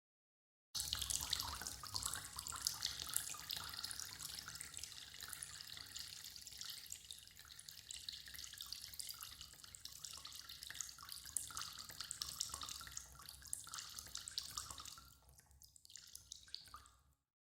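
Tap water running and splashing into a sink, loudest at the start and easing off gradually. About fifteen seconds in it stops, leaving a few last drips.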